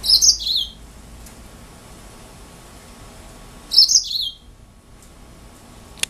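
Juvenile green singing finch (yellow-fronted canary) singing two brief phrases of quick, high chirping notes, one right at the start and one about four seconds in.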